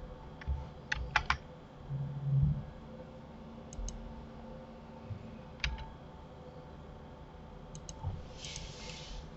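Computer keyboard keystrokes and clicks while working Blender shortcuts (duplicate and rotate), as a few sharp clicks in small clusters. There is a brief low hum about two seconds in and a short hiss near the end.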